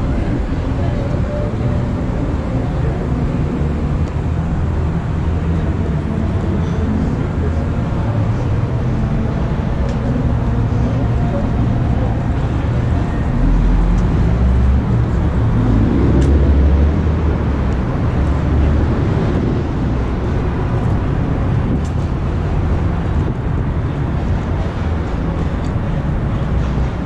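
Steady street traffic noise. A louder low rumble from a vehicle passing close swells about halfway through and then fades.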